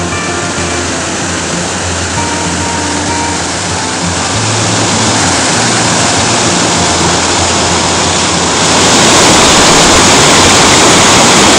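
Whitewater roar of a waterfall, swelling about halfway through and loudest from about nine seconds in, with spray splashing over the microphone. A music track plays faintly under the water in the first seconds.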